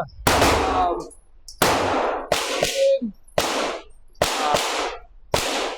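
Gunfire at a shooting range: about eight sharp shots in under six seconds, unevenly spaced, each ringing on briefly after the crack.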